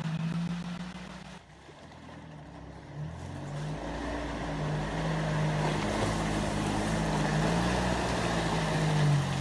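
UAZ off-roader's engine running and revving as it crawls through a water-filled muddy rut, its pitch rising and falling under load. The sound dips briefly about a second and a half in, then comes back louder, with mud and water sloshing around the wheels.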